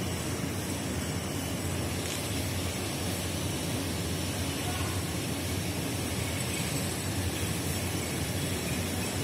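A 125cc dirt bike's engine idling with a steady low rumble.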